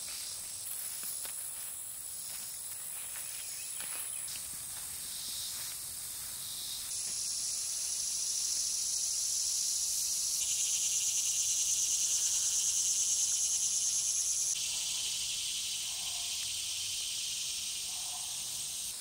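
A steady, high-pitched insect chorus in a summer garden. It grows louder about seven seconds in and again around ten seconds, then drops back slightly near fifteen seconds.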